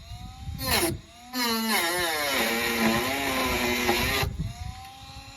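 Dremel rotary tool with a cutting disc cutting rust out of a car body panel, its high whine dipping and rising in pitch as the disc bites into the metal and filler. It runs briefly, then for about three seconds, and drops away near the end.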